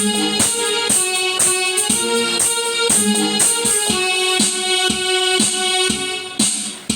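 Roland XPS-10 keyboard playing a melody over its built-in rhythm accompaniment, with a steady beat of about two strikes a second. The playing drops away shortly before the end.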